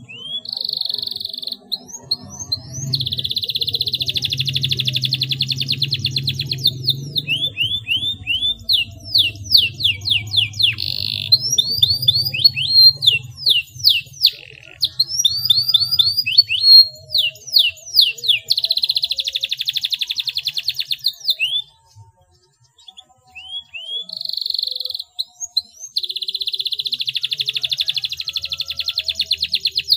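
Domestic canary singing a long, clear rolling song. Fast trilled rolls held for a second or more alternate with runs of quick falling whistled notes, with two short breaks about three-quarters of the way through.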